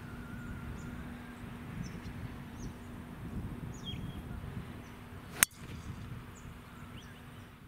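Golf driver striking a teed-up ball: a single sharp crack about five and a half seconds in.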